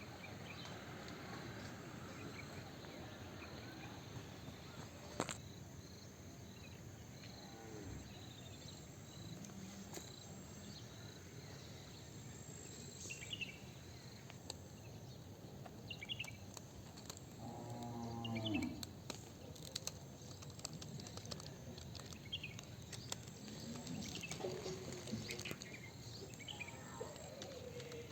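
A cow moos once, a low call with a stack of overtones, about two-thirds of the way through. Faint, short, high chirps repeat every couple of seconds over a quiet outdoor background.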